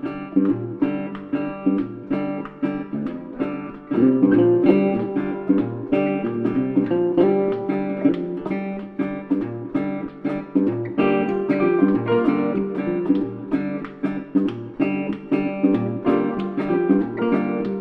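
Background music: acoustic guitar strummed in a steady rhythm, in a country style.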